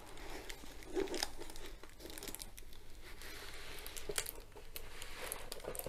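Diamond painting canvas being unrolled by hand, its clear plastic protective film crinkling with irregular crackles.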